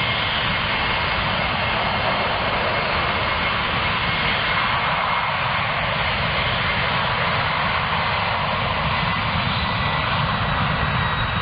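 Lockheed C-5 Galaxy's four turbofan jet engines at takeoff power during the runway roll: a loud, steady rush with a faint thin whine riding on top.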